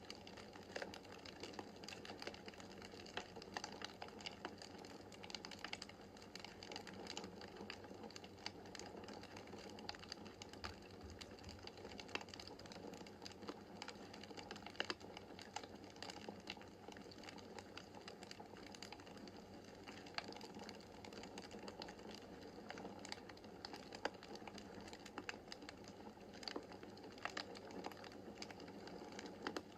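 Wood fire crackling in a fireplace: many small, irregular crackles and an occasional sharper snap over a steady soft hiss.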